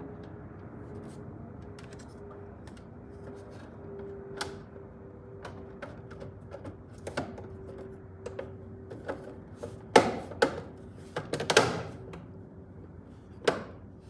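Scattered plastic clicks, taps and knocks from wires being pushed into an exit sign's housing and its faceplate being fitted back on. The loudest knocks come near the end. A faint steady hum runs underneath.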